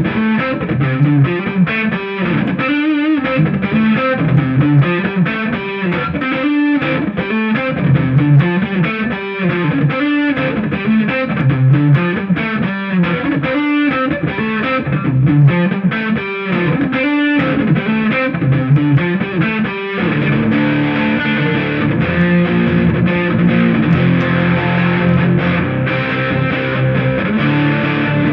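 Dean Vendetta 1.0 electric guitar played with distortion: a riff of picked notes and chords repeating every couple of seconds. About twenty seconds in it changes to held, ringing chords.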